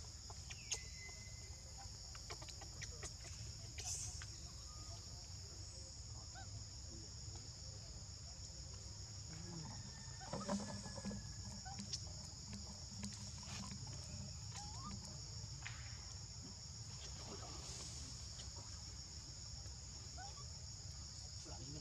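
Steady, high-pitched drone of insects such as cicadas or crickets, in two close bands. Scattered faint clicks and short animal calls sound over it, and a louder call comes about ten and a half seconds in.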